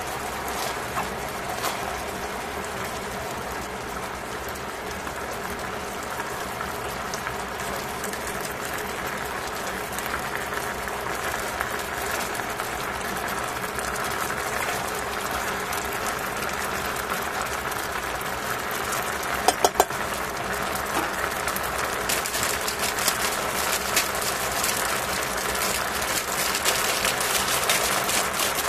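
Pork slices and mushrooms boiling in a brown sauce in a stainless steel pot: a steady bubbling and crackling that grows busier near the end. About two-thirds through come three sharp clicks in quick succession, the loudest sounds.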